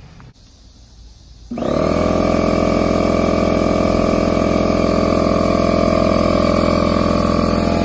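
Portable electric air compressor switching on about a second and a half in and running steadily with a constant motor hum, inflating a mountain bike tyre.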